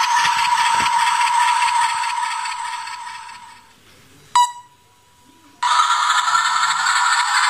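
DIY diesel-engine sound unit in a Bachmann HO scale Santa Fe diesel locomotive, playing a tinny diesel-engine drone through its small speaker. The drone fades out as the track power is turned down and the locomotive stops. A single sharp click follows, then the drone cuts back in suddenly when power returns.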